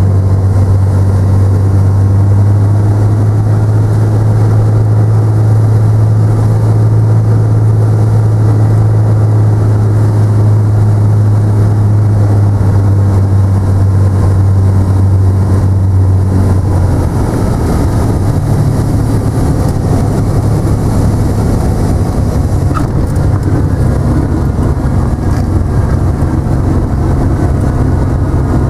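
Cessna 150's piston engine and propeller heard from inside the cockpit, a loud steady drone with a strong low hum on final approach. About 17 seconds in, the note drops and turns rougher and a little quieter as power is pulled back for landing, and it keeps running at low power through the touchdown and rollout.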